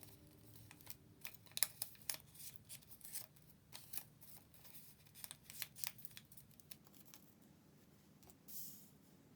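Origami paper being folded and creased by hand: faint, irregular crisp clicks and rustles, with a slightly longer rustle near the end.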